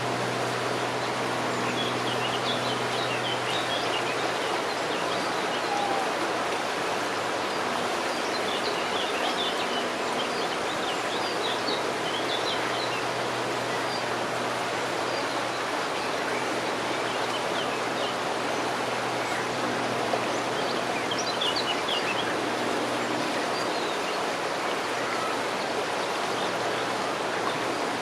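Steady rush of flowing river water, with clusters of short high bird chirps a few times and a faint low hum that comes and goes.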